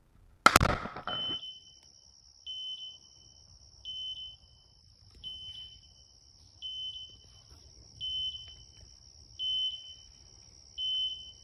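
A single shotgun shot about half a second in, ringing briefly. Then a short electronic double beep repeating evenly about every second and a half, typical of a pointing dog's beeper collar, over a faint steady high whine.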